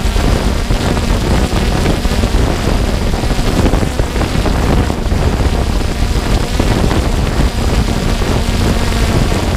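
Steady wind rush and propeller hum of a 3DR Solo quadcopter in flight, picked up by its onboard camera's microphone, heavy and rumbling in the low end with a faint steady hum.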